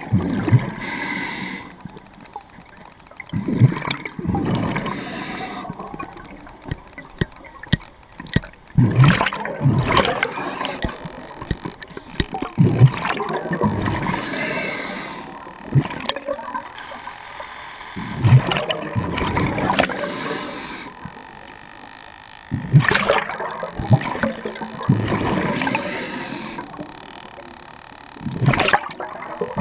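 Underwater breathing through a scuba regulator: bursts of exhaled bubbles gurgle and rumble every few seconds, with quieter pauses between breaths.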